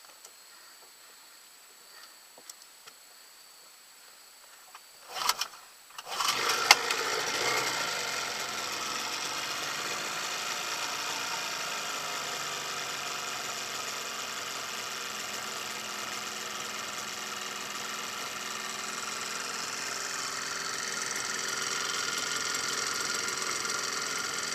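Johnson 15 hp outboard motor cold-started: a short burst of cranking about five seconds in, then it catches about a second later and runs, loudest just after catching, then settles to a steady run.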